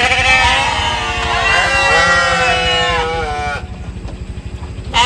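Goats bleating, several wavering calls overlapping for about three and a half seconds, then a short lull before another bleat starts near the end. A low, steady pulsing rumble runs underneath.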